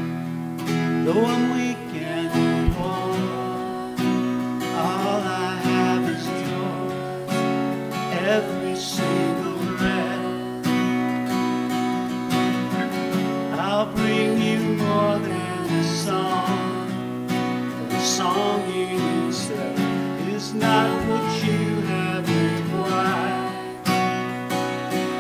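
Two acoustic guitars strumming a slow worship song, with singing voices mixed in at times.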